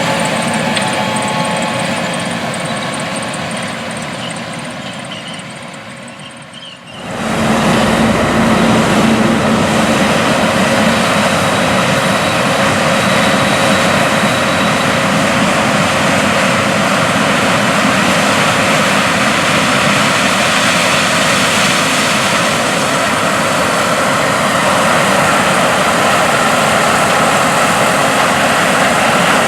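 Large diesel farm machine running: first fading away for about seven seconds, then, after an abrupt cut, a loud, steady engine and machinery drone close by.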